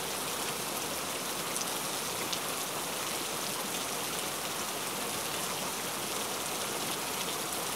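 Steady, even hiss like light rain, with a few faint ticks.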